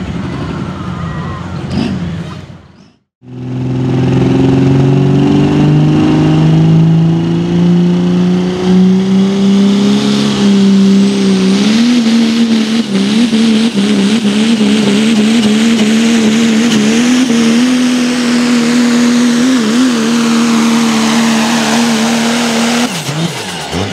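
Diesel Dodge Ram pulling truck under full throttle hauling a sled. After a brief dropout about three seconds in, the engine's pitch climbs steadily and steps up about twelve seconds in. It then holds at high revs with slight wavers until it cuts off near the end.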